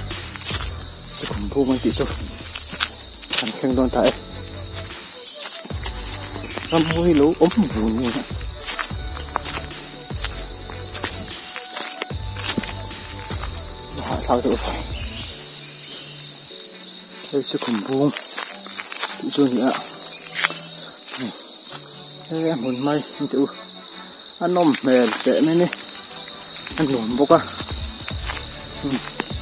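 A loud, steady, high-pitched shrill from a chorus of insects in the forest, running without a break.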